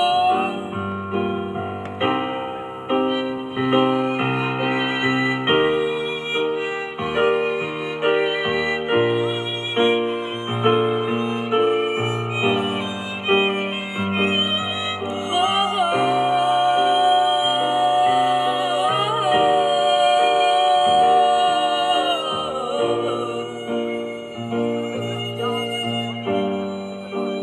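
Instrumental break of a song: a keyboard-backed band with bass and a lead melody, holding one long high note through the middle.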